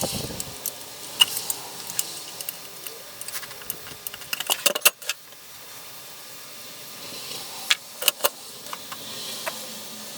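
Small metal parts and hand tools clicking and clinking as they are handled: scattered sharp clinks, with a quick run of them about halfway through and a few more near the end.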